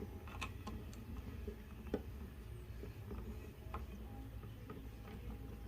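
Light scattered clicks and taps of small metal parts as a sheet metal screw is started into the mower's safety-cable bracket, one sharper click about two seconds in, over a low steady hum.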